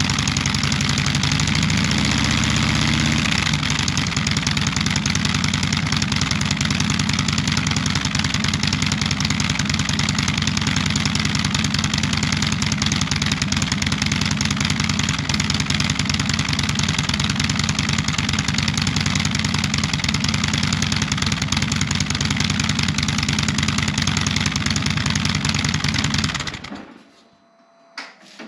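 2016 Harley-Davidson Street Glide's V-twin idling through Rinehart dual slip-on mufflers fitted with quiet baffles, with a short rev about two seconds in. The sound cuts off near the end.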